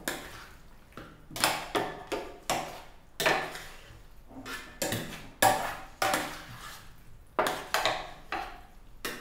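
A large spoon mixing pasta and vegetables with sauce in a metal oven dish: irregular knocks and scrapes of the spoon against the dish, about one or two a second.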